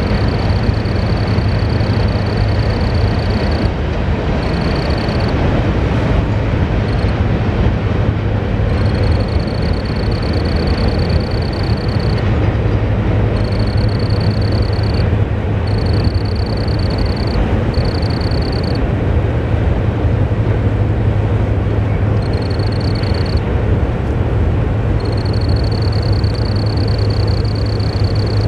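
A cricket chirping in long trills of one to three seconds with short breaks between them, over a steady low rumble from a long freight train rolling across a steel truss bridge.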